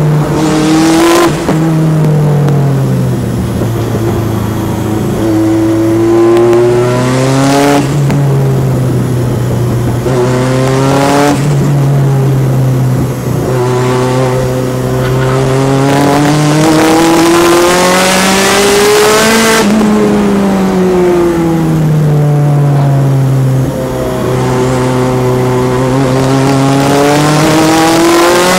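Turbocharged Peugeot 205's four-cylinder engine at racing speed, heard from inside the cabin: the engine note climbs under hard acceleration and drops away again, over and over, with a few sharp breaks in the sound at gear changes or lift-offs.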